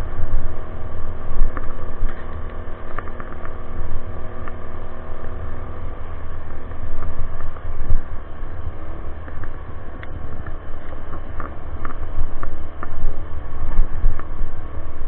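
Small gas generator engine running on an e-bike, a steady hum under heavy wind rumble on the microphone; after about seven seconds its note wavers and blurs, as the generator is faltering and about to die.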